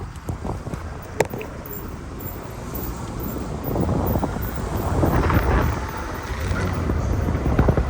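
Low, uneven rumbling background noise of an outdoor recording, with a single sharp click about a second in, growing louder about halfway through.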